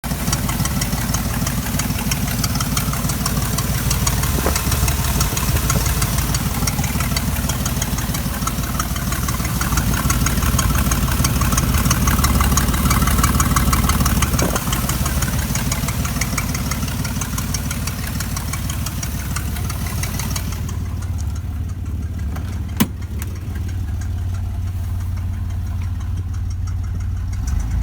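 1993 Chevrolet 4.3-litre V6 idling with a rapid ticking over the engine note, the kind of tick the owner suspects is an exhaust leak. The ticking fades away about twenty seconds in, with a single sharp click a little later.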